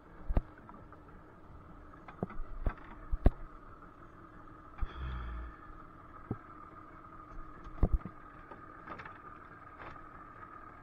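Scattered sharp knocks and one low thump of things bumping on a small boat as gear and camera are handled, over a faint steady hum.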